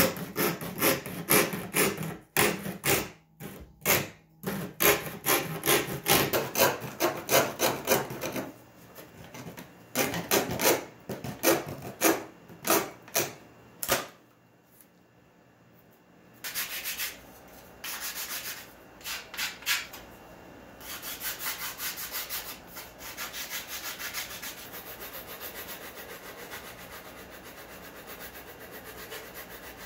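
A blade drawn over and over through thin 1/16-inch birch plywood, cutting out a part along a marked line: quick rasping strokes, several a second, in the first half, then quieter, softer rubbing.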